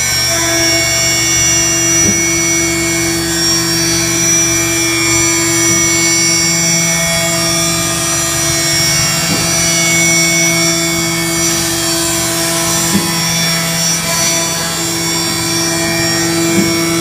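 Haas VF-5/40 CNC vertical mill running with a steady whine of several tones from the spindle and drives. The balance of its tones shifts around the middle and back near the end, and a few light ticks sound over it.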